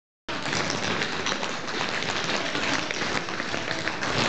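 Many tap shoes striking a wooden studio floor at once, out of step with one another, in a dense, continuous clatter of taps.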